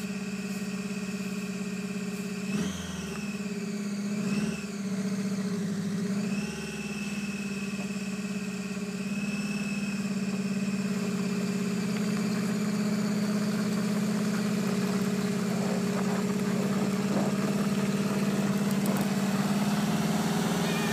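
Snowtrac tracked snow vehicle's engine running under load while towing a second Snowtrac out of deep snow. The engine is revved up and down a few times starting about three seconds in, then holds a steady note that grows gradually louder.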